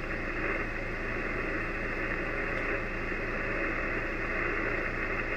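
Steady static hiss from an Icom IC-756PRO transceiver tuned to an 80 m sideband frequency with no station transmitting: the band's background noise between overs.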